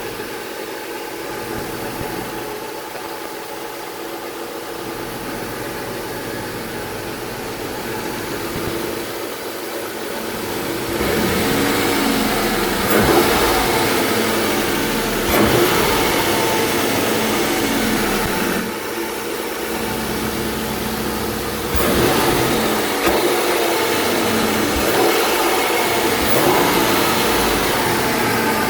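2001 Lincoln LS 3.9-litre V8 with an aftermarket cold air intake, started cold. It idles steadily at first, then from about eleven seconds in it is revved up several times, the intake noise swelling with each rev.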